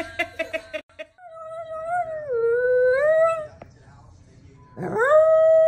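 A woman laughing in short bursts for the first second. Then a dog howls twice: a long wavering howl that dips and rises again, and about a second later a second howl that rises sharply and holds one steady pitch.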